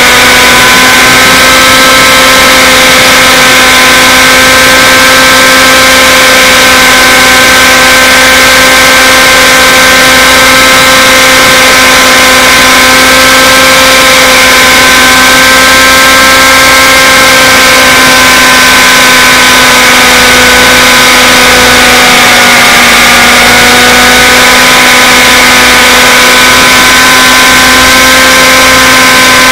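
Nitro RC helicopter's glow engine and rotors running steadily in a hover, a loud high-pitched whine heard from a camera riding on the helicopter. The pitch sags slightly about two-thirds through, then recovers.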